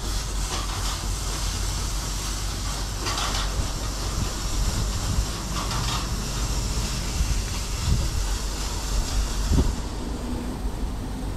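Christ Cadis C17 rollover car wash running its bug-removal and alloy-wheel chemical stage: a steady mechanical rumble with spraying hiss that swells briefly twice. Two short low thumps come in the second half.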